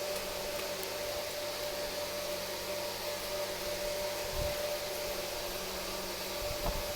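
Steady whooshing hiss with a faint constant hum, like a fan or blower running, and a soft low thump about four and a half seconds in.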